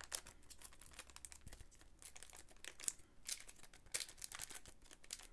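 Foil wrapper of a 1997 Bowman's Best basketball card pack crinkling and tearing as it is pulled open by hand, in faint, irregular crackles.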